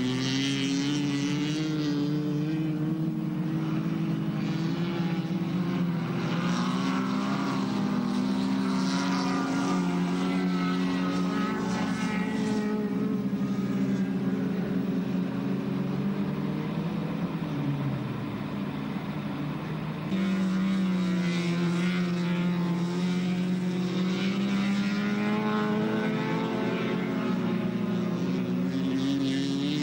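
Race car engines running steadily at high revs on an ice-racing track, a continuous drone that drifts slowly up and down in pitch, with a hiss over it that swells and fades. The sound cuts abruptly about twenty seconds in.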